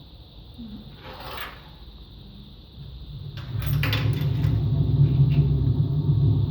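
Empty washing machine running on rinse and spin: quieter at first with a brief swish, then about three seconds in the drum picks up again and a loud low rumble builds, with a cluster of clicks and knocks. The rumble is the sign of bad bearings, which the owner suspects are in the drum, the motor or both.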